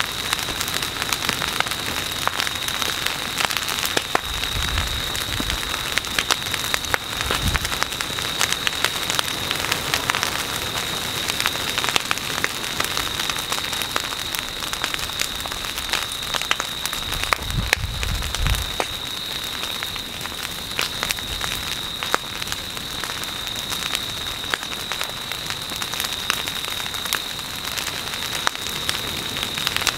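Ferns and brush burning where a lava flow has set them alight: dense, continuous crackling and popping of the vegetation in the flames.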